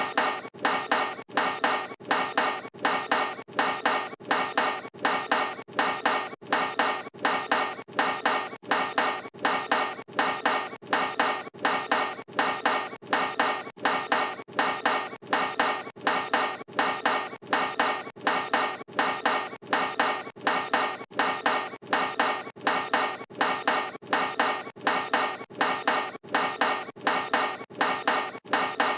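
A basketball clanging off a steel hoop rim on missed shots, over and over at an even, quick pace. Each hit is a sharp metallic clang with a short ring and a few smaller rattles dying away.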